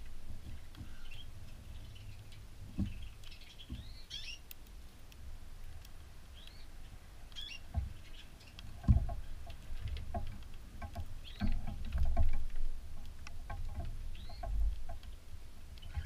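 Cockatiels feeding at a seed dish close to the microphone: low bumps and knocks, loudest about nine and twelve seconds in, with small clicks of beaks working the seed. A few short bird chirps come through.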